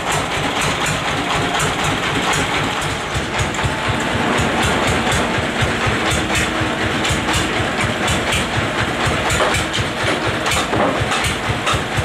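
Sawmill's engine running steadily with a rapid low chugging, and scattered sharp clicks and knocks over it.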